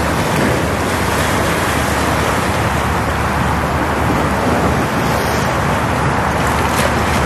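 Steady rushing noise of sea waves and wind at the shoreline.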